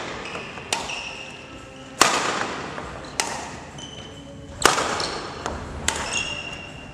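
Badminton racket smashing a shuttlecock: two sharp cracks about two and a half seconds apart, each coming about a second after a fainter hit that feeds the shuttle, with echo from a large sports hall.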